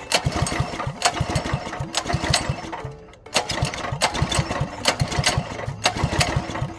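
A mini bike's small engine being pull-started by its recoil starter, pulled over repeatedly in two runs with a short pause about three seconds in. It cranks with a quick series of thuds but never fires, because the spark plug is not connected.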